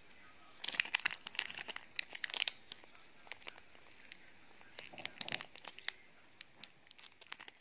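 Packaging crinkling and crackling as it is handled during an unboxing, in several bursts of quick crackles with short quieter gaps between them.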